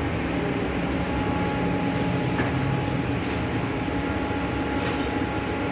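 Glue-roller plastic laminating machine running: a steady mechanical rumble and hum of its rollers, motor and heater fans, with a thin steady whine and a few faint ticks.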